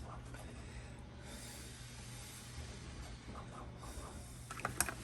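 Faint rubbing and handling sounds of small 3D-printed plastic parts and putty being worked by hand, over a low steady hum.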